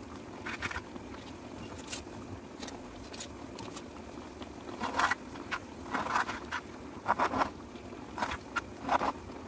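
Kitchen knife cutting chicken livers and gizzards on a wooden cutting board: irregular taps and scrapes of the blade on the board, coming thicker from about halfway through, over a steady low hum.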